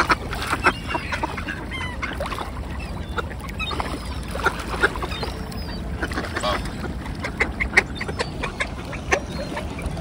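A crowded flock of mallards, gulls and whooper swans calling: a continuous busy chorus of duck quacks and many short, sharp bird calls.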